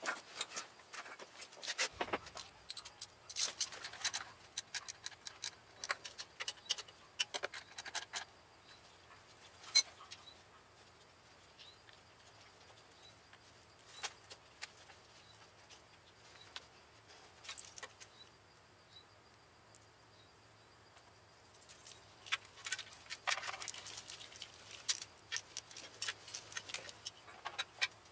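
Scattered small clicks, ticks and light rattles of hands handling a scooter's wiring harness and plastic connectors, busy at first, sparse through the middle, then busy again near the end.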